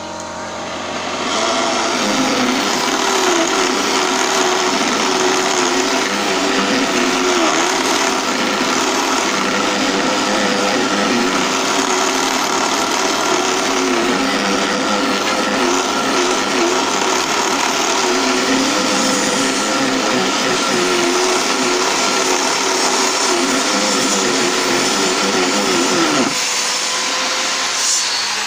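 Small benchtop mini lathe's motor running, with a hand rasp scraping against the spinning wooden blank; the motor's pitch wavers and dips as the rasp bites. The scraping starts about two seconds in and stops near the end, leaving the motor running on its own.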